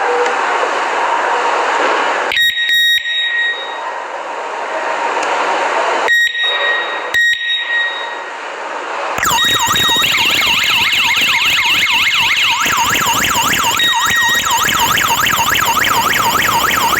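An electronic alarm host beeps briefly a few times, then about nine seconds in the kit's wired siren sounds, a loud, fast warble sweeping up and down in pitch.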